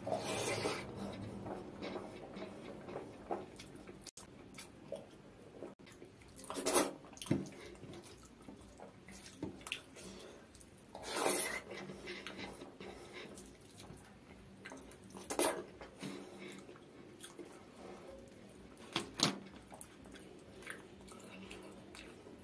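Close-miked wet eating sounds: chewing and lip smacks from eating rice mixed with dal by hand, with the squish of fingers working the rice on the plate. Several louder wet smacks come a few seconds apart.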